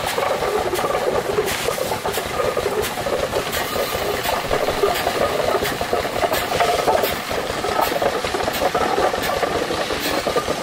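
Restored wooden winnowing machine with a belt-and-cup grain elevator running: a steady clattering rattle from the mechanism, with a sharp click about every two-thirds of a second.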